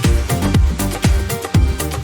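Background electronic dance music with a steady four-on-the-floor kick drum, about two beats a second.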